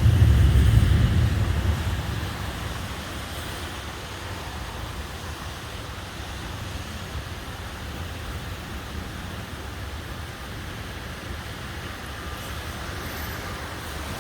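Thunderstorm with downburst winds and heavy rain: a deep rumble fades over the first two seconds, then a steady rush of wind and rain.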